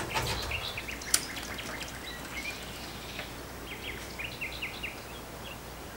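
Woodland birds singing: repeated short chirps and quick trills in clusters, over a steady outdoor background hiss, with one sharp click about a second in.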